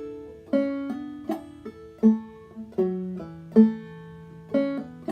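Five-string banjo played clawhammer style in G tuning capoed up to A, picking a slow phrase in a steady "bum diddy" rhythm. A strong stroke falls about every three-quarters of a second, with lighter ringing notes between.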